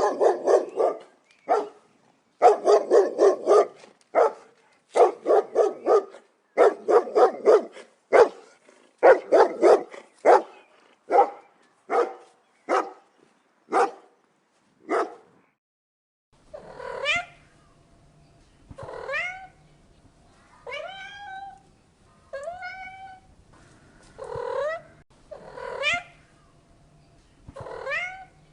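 A dog barking in quick runs of short barks for about fifteen seconds, then, after a short pause, a cat meowing again and again, one meow every second and a half to two seconds, each rising in pitch.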